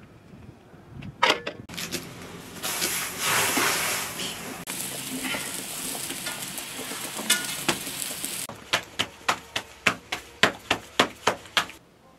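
Chicken pieces and sliced onion boiling in a pot: a steady hiss of boiling from about two seconds in until past eight seconds. It is followed by a quick run of about a dozen sharp knocks, roughly four a second, which stop shortly before the end.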